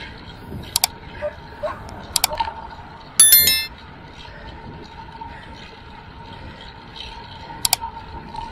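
Sound effects for a subscribe-button animation. Three quick double mouse-clicks, and a bright bell-notification chime about three seconds in, the loudest sound. Under them runs a steady background noise.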